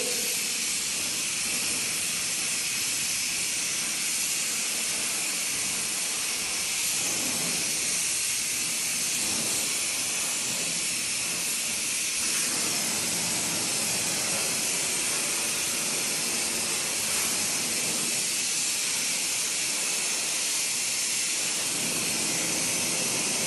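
Oxy-fuel brazing torch flame hissing steadily as it heats a copper pipe joint.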